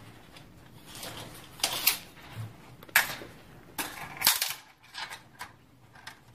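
Steel tape measure blade being pulled out and laid across a metal window frame: a string of sharp clicks and short rasps.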